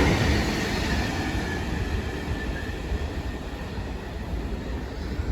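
Train moving through the station, a steady low rumble with a faint whine that slowly fades.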